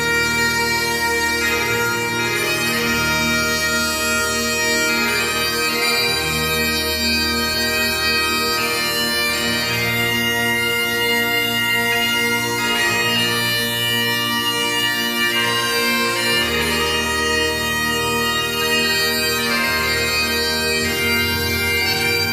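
Music played on bagpipes: steady held notes over a drone, with low notes beneath that change every few seconds.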